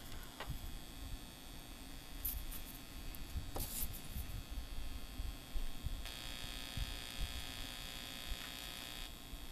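Small clicks and rustles of test leads being handled and clipped onto a circuit board. About six seconds in, a steady electronic tone from a test oscillator starts, played through a little LM386 amplifier and 2.5-inch speaker. It holds for about three seconds and cuts off suddenly.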